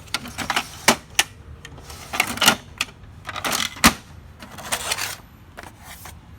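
Irregular sharp plastic clicks and short rattles at an HP Color LaserJet printer, about a dozen of them at uneven spacing.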